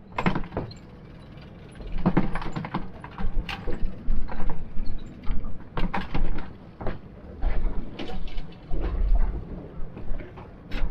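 Irregular knocks, clicks and rattles of tackle and fish being handled aboard a small fishing boat, over a low wind rumble on the microphone.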